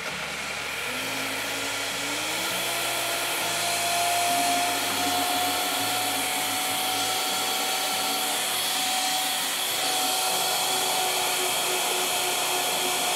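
High-powered countertop blender running on thick pumpkin pie filling, its motor pitch rising over the first couple of seconds and then running steady. Melted coconut oil is being poured in through the lid while it blends.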